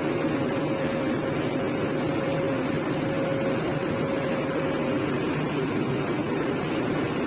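Kobelco SK200 hydraulic excavator's diesel engine and hydraulics running steadily, with a thin steady whine on top that fades out about five seconds in.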